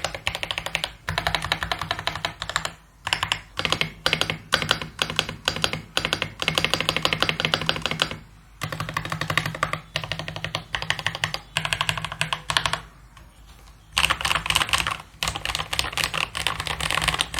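AULA F3032 gasket-mount mechanical keyboard with pre-lubed AULA custom tactile switches, typed on fast in runs of many keystrokes. There are short breaks between runs and a longer pause about 13 seconds in.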